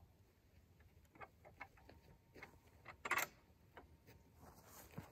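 Light, scattered clicks and knocks from handling the drawn triple-bow bed crossbow while a steel-tipped bolt is loaded, with one sharper, louder snap about three seconds in.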